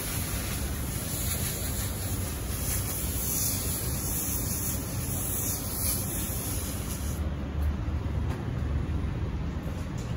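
Steady background noise: a low rumble with an even hiss over it, and a brighter high hiss that stops about seven seconds in.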